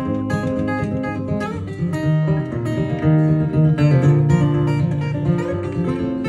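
Steel-string acoustic guitar played solo: an instrumental tune of quick plucked notes over repeated bass notes.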